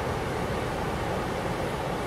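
Steady rush of river rapids: whitewater pouring over rocks, an even noise with no break.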